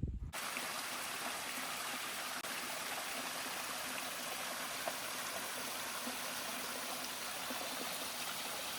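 A stream's water rushing steadily, cutting in and cutting off suddenly.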